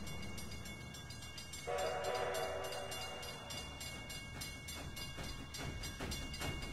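Lionel Polar Express toy train set: a steady low hum, then a multi-note steam whistle sounds for just over a second about two seconds in. Soft, evenly spaced thumps begin near the end.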